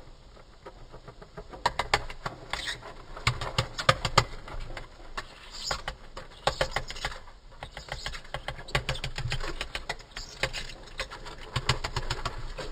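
Death's-head hawkmoth's wings fluttering in bouts, a rapid rattle of wingbeats. It starts about a second and a half in and comes in four or so spells, each a second or two long.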